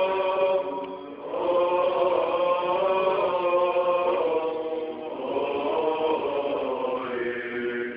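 Male voices singing Byzantine chant in long, held phrases, with short breaks about a second in and near the middle.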